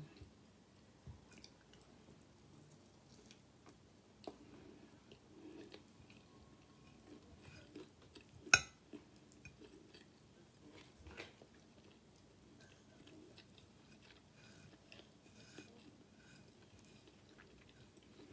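Quiet, close-up chewing and mouth sounds of someone eating sauced fried chicken chunks, with small irregular clicks. A metal fork taps on the plate now and then, sharpest about halfway through.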